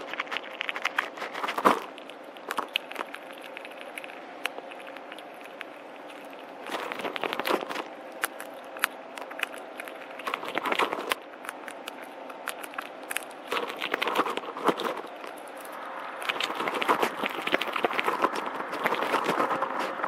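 Gray squirrel rummaging through birdseed in a feeder tray and cracking seeds: a run of sharp clicks and crunches in bouts, busiest and loudest over the last few seconds.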